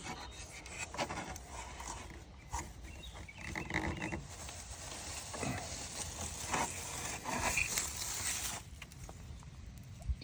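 Dry bird's-nest material (leaves, moss and twigs) rustling and crackling as it is pulled by hand from a truck's engine bay, in irregular scratchy bursts that die away about two seconds before the end.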